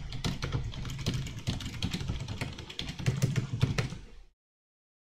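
Computer keyboard typing: quick, irregular keystrokes over a low steady hum. About four seconds in, the sound cuts off suddenly to dead silence.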